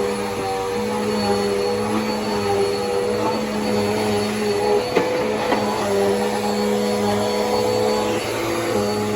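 Bissell PowerForce Helix upright vacuum cleaner running steadily, its motor tone wavering slightly as it is worked back and forth, with a brief knock about five seconds in.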